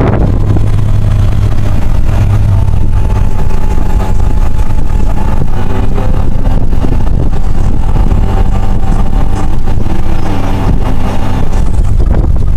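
Steady, loud low rumble of a car driving, with wind buffeting the camera's microphone.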